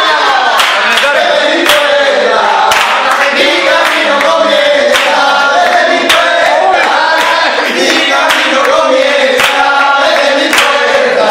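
A group of people singing a sevillana rociera together, with handclaps (palmas) keeping time.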